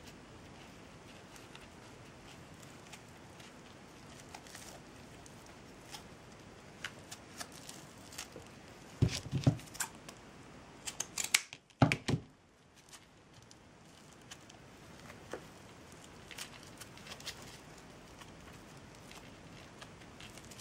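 Scissors cutting jute twine: a few short, sharp snips around the middle, with small scattered clicks of handling before and after.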